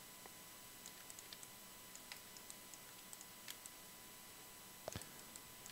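Faint, scattered clicks of a computer mouse and keyboard over near-silent room tone, with one somewhat louder click about five seconds in.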